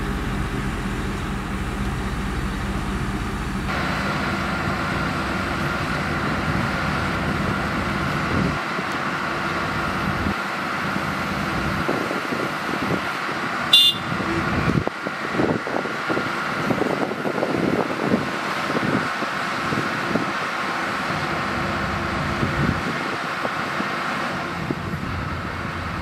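Diesel engines of heavy earthmoving machinery running steadily, with a high whine held through most of it and one short sharp sound about fourteen seconds in.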